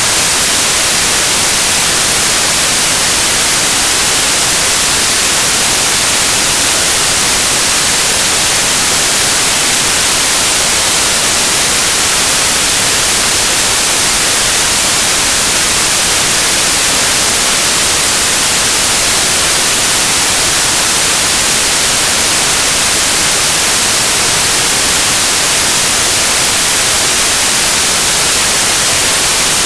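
Loud, steady white noise: an even hiss across the whole range with no change, played as a headphone burn-in signal.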